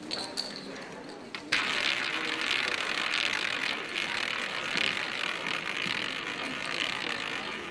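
Roulette ball running around the track of a spinning roulette wheel: a steady whirring rattle that starts suddenly about a second and a half in. Before it, a few light clicks over a low room murmur.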